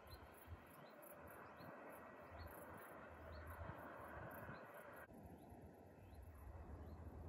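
Near silence outdoors: faint, short, high chirps repeat a little faster than once a second, and a low rumble joins near the end.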